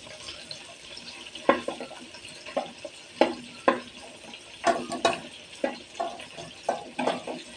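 Shrimp frying in oil in a wok with a steady sizzle, while a ladle knocks and scrapes against the pan in about ten sharp clicks as the shrimp are scooped out.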